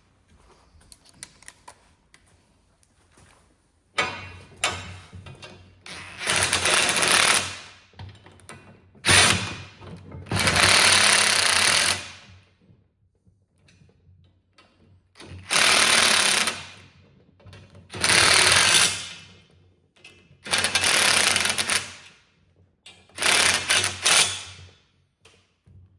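Power tool, likely an impact driver, running nuts down onto the plow blade's bracket bolts in about six short bursts of a second or two each, with quiet handling between.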